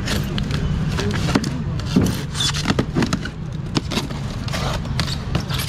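A knife is scraped through a styrofoam box lid, which is then pried open, giving a run of irregular crackles, scrapes and squeaks from the foam. Under it is a steady low background hum.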